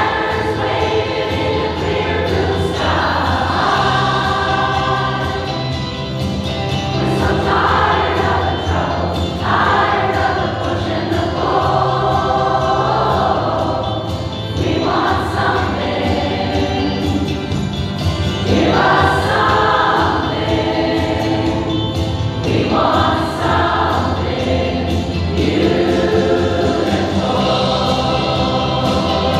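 Women's choir singing together, in phrases of a few seconds each, with steady low notes held underneath.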